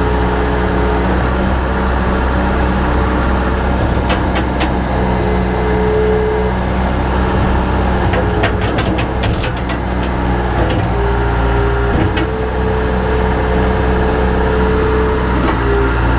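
Bobcat 853H skid steer's diesel engine running steadily, with a run of metallic rattles and clicks around the middle.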